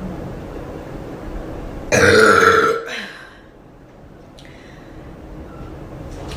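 A woman burping once, loudly, about two seconds in, the burp lasting just under a second.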